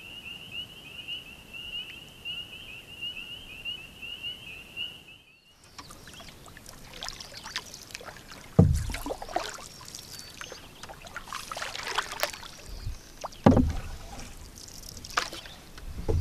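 A high, steady trill for the first five seconds, then canoe paddling: paddle strokes with water splashing and dripping, and dull heavy thumps about every four to five seconds.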